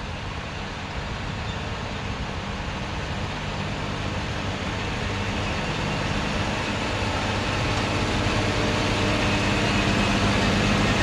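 John Deere 8310R tractor's diesel engine running steadily under load while pulling a cultivator through the soil, growing louder as the tractor approaches.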